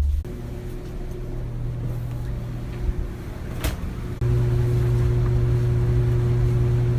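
A steady low machine hum, with a sharp click about three and a half seconds in; the hum gets louder about four seconds in and then stays level.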